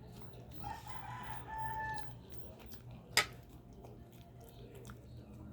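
A rooster crows once, a held call of about a second and a half. About three seconds in there is a single sharp click, the loudest sound here.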